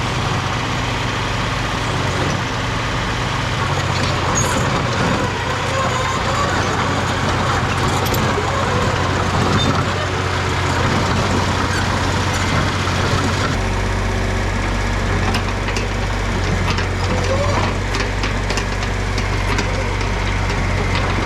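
Mini excavator's diesel engine running steadily. Its low note changes about two-thirds of the way through.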